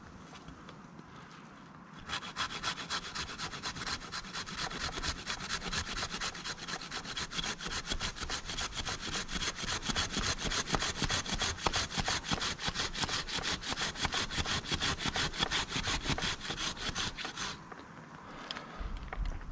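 Hand pruning saw cutting through a tree limb in fast, steady back-and-forth strokes. The sawing starts about two seconds in and stops a couple of seconds before the end.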